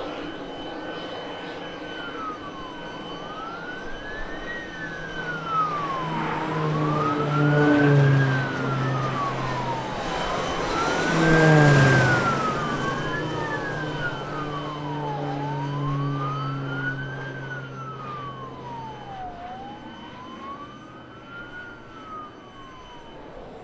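A siren wails, its pitch rising and falling every three and a half seconds or so. Under it, the turboprop engines of Air Tractor AT-802 Fireboss water bombers pass by twice, loudest about twelve seconds in, where the engine pitch drops sharply as the aircraft goes past.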